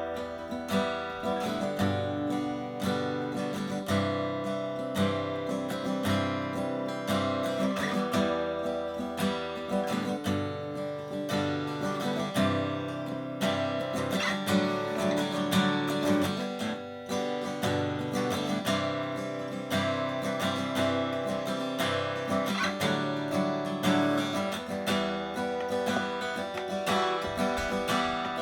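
1954 Martin 000-18 acoustic guitar, with a spruce top and mahogany back and sides, being played: a continuous run of plucked notes and chords ringing on.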